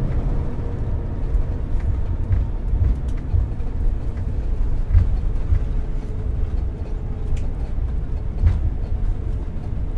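Cabin noise of an Airbus A350-900 rolling on the ground after landing: a steady low rumble from the wheels on the runway and taxiway, with a few light bumps along the way.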